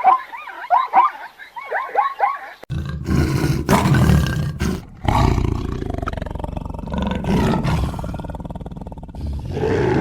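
A run of short, high yelping calls for the first couple of seconds, then, after a cut, a big cat's deep, drawn-out roaring growl.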